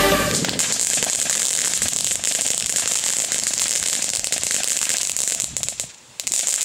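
Crackling smoke firework (knetterbom) burning on the ground, giving a steady dense fizz of small crackles as it throws out sparks and smoke. The sound drops out briefly near the end, then the crackling resumes.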